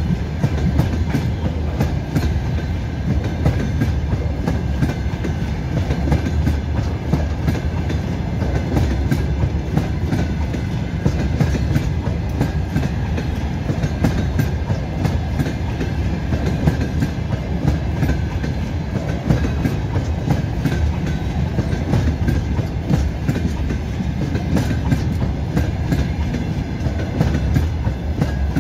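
Open-top freight gondola wagons rolling past at close range: a steady rumble of steel wheels on the rails with continual clickety-clack over the rail joints.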